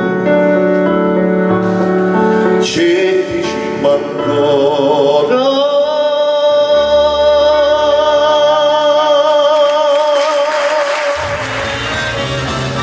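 Male singer with a live band finishing a song in Neapolitan: a sung phrase, then a long final note held with vibrato for several seconds. Clapping starts near the end as the note ends.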